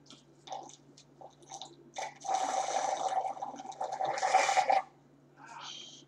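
Drink sucked up through a straw from a nearly empty plastic cup: a loud, gurgling slurp of air and liquid lasting about two and a half seconds, starting about two seconds in, then a short second slurp near the end. Small mouth clicks come before it.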